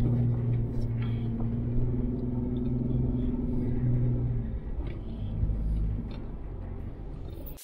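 A Jeep driving slowly over a snowy track, heard from inside the cabin: a steady engine hum over a low rumble of tyres and road. The engine note eases off about four and a half seconds in.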